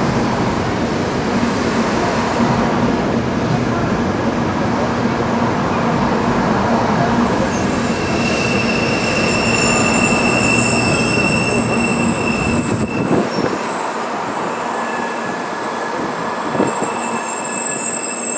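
JR Central 700 series Shinkansen trainset rolling slowly past as it pulls into the station: the running gear rumbles with a steady low hum. From about eight seconds in, high-pitched wheel squeal rises over it. The rumble falls away about thirteen seconds in as the last car passes, while the squeal carries on.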